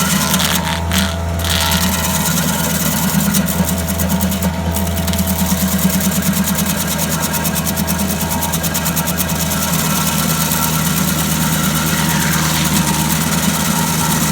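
Engine running steadily at a constant speed, a low drone with a rough, rattly noise over it.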